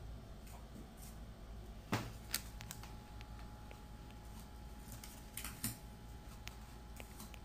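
Hands working a clear plastic sheet and adhesive tape against cardboard: faint rustling, with a few sharp crinkles, two about two seconds in and a small cluster around five and a half seconds.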